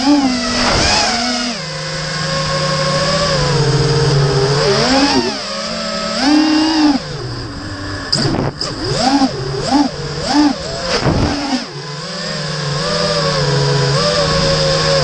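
Brushless motors and propellers of a 220-size FPV racing quadcopter, recorded through its onboard camera, whining with a pitch that rises and falls with the throttle. The pitch holds fairly steady at first and near the end, with a run of quick up-and-down swoops in the middle.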